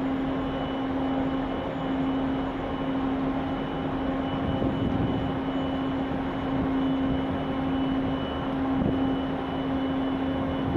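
Steady machinery hum from the berthed helicopter destroyer JS Izumo: a constant low drone with fainter higher tones over an even rush of noise.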